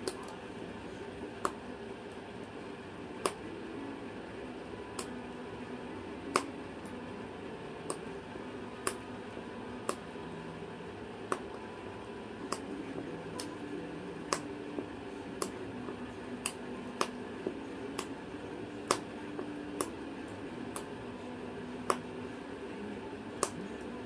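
White cockatoo's beak crunching and snapping a wooden chew toy: sharp cracks at an uneven pace of roughly one a second, over a steady low room hum.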